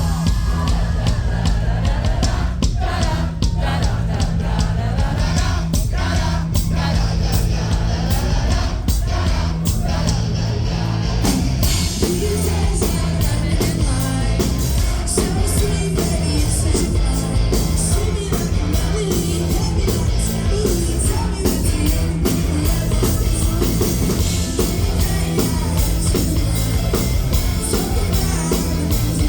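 Live rock band playing a song at full volume, with singing over it. The music gets fuller and brighter about eleven seconds in.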